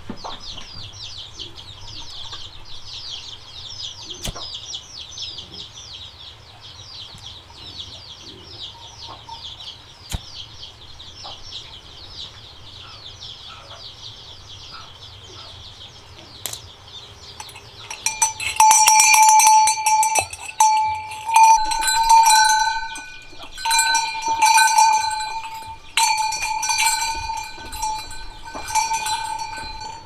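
A high, fast chirring runs steadily for about the first seventeen seconds. From about eighteen seconds in, a homemade tin-can bell clanks loudly and rings again and again in uneven bursts.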